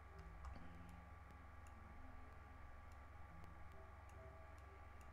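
Near silence: a steady low electrical hum with a few faint, scattered clicks.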